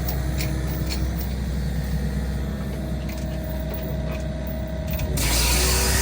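Yanmar Vio55 excavator's diesel engine running steadily with a deep hum, driving a FEMAC flail mulcher head. About five seconds in the sound suddenly gets louder and harsher, with a rising whine as the machine speeds up.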